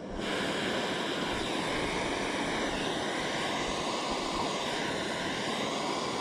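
Small backpacking canister stove lit on a gas canister, its burner running with a steady rushing hiss that comes on right at the start.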